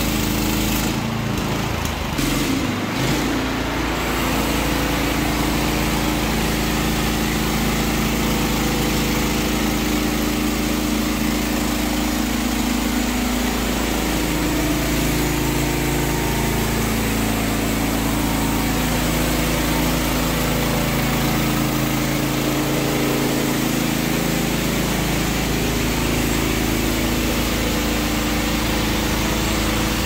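Norwood LumberMate LM30 portable bandsaw mill's gasoline engine running steadily.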